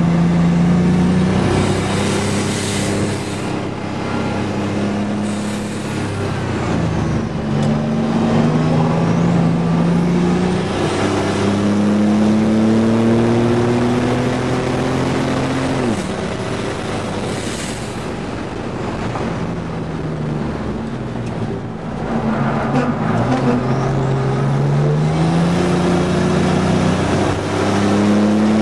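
GMC Syclone's turbocharged 4.3-litre V6 heard from inside the cab at racing pace. The engine note climbs repeatedly under acceleration and drops sharply at each shift or lift, the longest climb in the middle, over steady road and wind noise.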